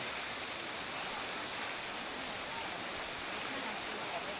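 Shallow rocky stream running over stones: a steady, even rush of water with a bright hiss.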